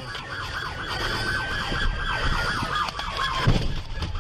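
Police car sirens: a fast up-and-down yelp cycling several times a second, overlapped by a second siren tone that glides slowly downward, over the rumble of the patrol car on the road. A low thump about three and a half seconds in.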